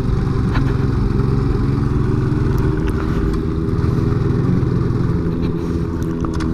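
Suzuki Smash 110 underbone motorcycle's single-cylinder four-stroke engine running steadily while it rides along a dirt track, with a few light ticks over it.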